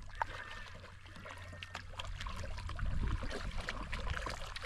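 Kayak paddle strokes in calm water: the blades dipping and splashing, with irregular patters and drips of water running off them, getting louder from about halfway through as the kayak comes closer.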